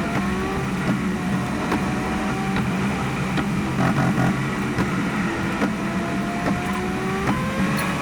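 Car engine accelerating through the gears: its pitch climbs steadily in long pulls and drops back at each gear change, with road noise underneath.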